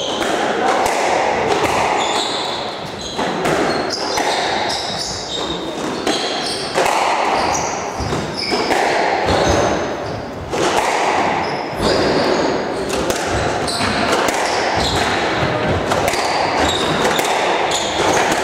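Squash balls being struck and smacking off walls and floor, a string of sharp echoing impacts, over a murmur of voices in a large hall.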